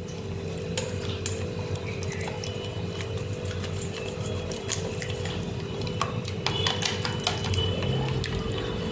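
A whisk beating a runny egg mixture in a stainless steel bowl: wet stirring with scattered light clicks of the whisk against the bowl, more of them in the second half, over a steady hum.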